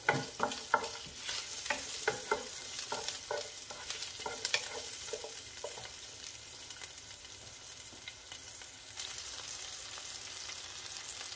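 Diced onion, garlic, cumin seeds and dried red chillies sizzling in a little hot oil in a nonstick frying pan, with a wooden spatula tapping and scraping against the pan as they are stirred for the first half. After that only the sizzle goes on, a little stronger near the end.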